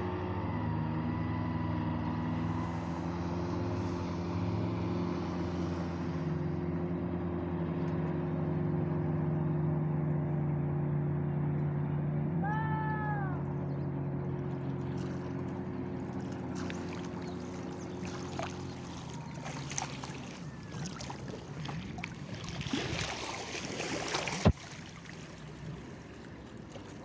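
A motor runs with a steady hum and cuts out about two-thirds of the way through. A brief high arched call sounds about halfway. After the motor stops come scattered clicks and light splashing noises, with one sharp knock near the end.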